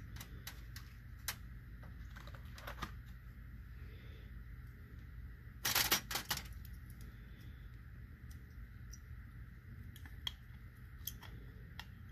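Small clicks and taps of hands handling a Raspberry Pi board, its cooler and small screws and standoffs, with a louder burst of clatter about six seconds in, over a steady low hum.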